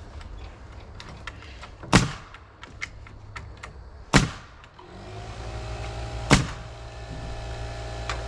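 Three loud, sharp knocks about two seconds apart on the wooden house framing, with lighter taps between them. About five seconds in, a steady low hum starts up.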